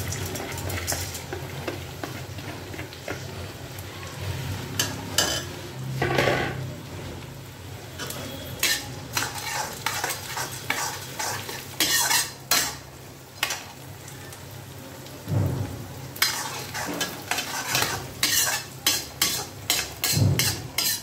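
Black soybeans sizzling as they fry in hot mustard oil with onions in a kadhai. A metal spatula scrapes and clacks against the pan over and over, and the strokes come faster in the last few seconds.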